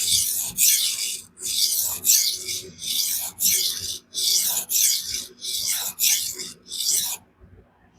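Knife blade of Spyderco Magnamax steel stroked back and forth on a 400 grit vitrified diamond sharpening stone: about a dozen even rasping strokes that stop about seven seconds in. The hard steel skates across the stone while the stone cuts it quickly, raising a burr.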